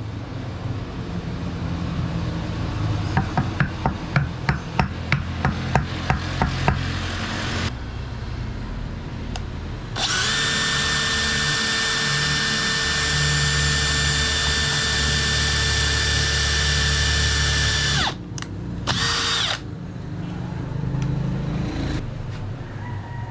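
Makita 18V cordless drill running at a steady speed for about eight seconds, boring a long bit through clamped hardwood, then a second short burst. Before the drilling, a quick run of sharp clicks, about three a second.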